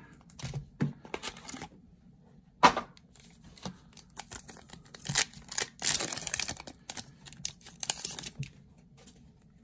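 Foil booster-pack wrappers crinkling as they are handled and torn open by hand, with scattered clicks and taps from the packs and cards. A sharp tap about three seconds in is the loudest sound.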